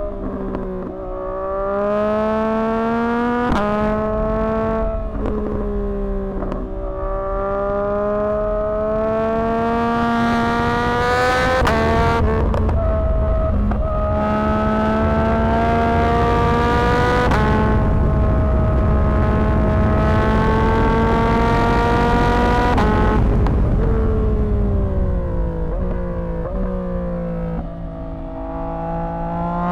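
2024 Yamaha MT-09's 890 cc inline-three, with a Dominator HP6 exhaust, pulling hard through the gears: two short rising pulls cut by quick upshifts, then longer climbing pulls in higher gears. Near the end it backs off, with sharp downshift blips, and starts to pull again.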